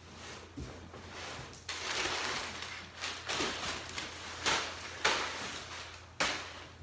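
Crumpled brown packing paper rustling and crinkling as it is pulled out of a cardboard box, in a run of bursts with a few sharp, loud crackles.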